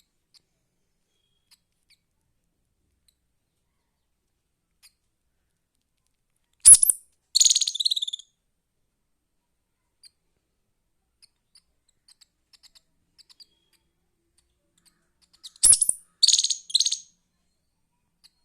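Indian palm squirrel chirping: two bouts of quick, high-pitched chirps, the first about seven seconds in and the second near the end, each opening with a sharp chirp followed by a rapid run of shorter ones.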